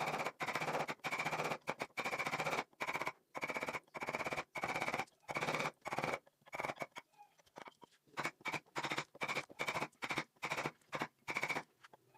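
A hand tool scraping across wood in short repeated strokes, each stroke a fast rattling scrape, with a brief pause about seven seconds in.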